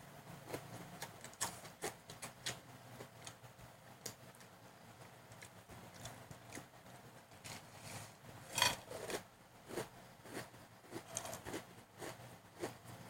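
Chewing on crispy Pik-Nik cheddar cheese shoestring potato sticks: irregular, crackly crunches with small mouth clicks, the loudest crunch about eight and a half seconds in.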